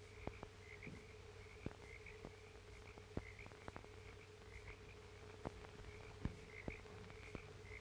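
Faint night-time frog chorus, a short chirp repeating every half second or so. Under it run the hiss, low hum and scattered clicks of an old film soundtrack.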